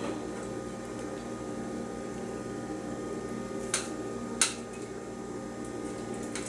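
A thick soup mixture is poured and scraped out of a stainless steel bowl into a slow cooker over a steady low hum. A little past halfway come two sharp metal clinks, about two-thirds of a second apart, from the utensil and bowl.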